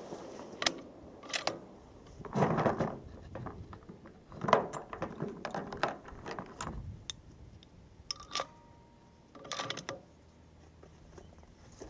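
Scattered metallic clicks and clacks in several short clusters, typical of a bolt-action .300 Winchester Magnum rifle being worked and handled between shots.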